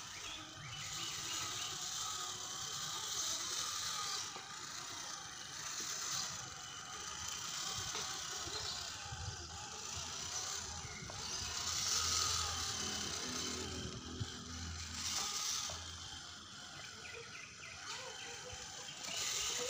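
1/10-scale RC rock crawler's electric motor and geartrain whirring, swelling and easing off in several bursts, as it crawls over gravel and bricks, with a few clicks and scrapes from the tyres on the stones.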